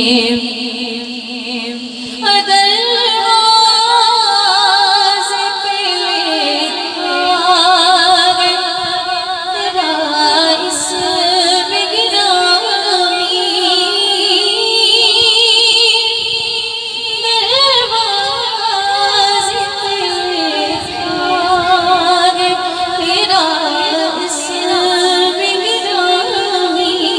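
A girl singing a devotional song solo into a microphone, with an echo effect on the voice. She holds long, wavering, ornamented notes in a continuous melodic line.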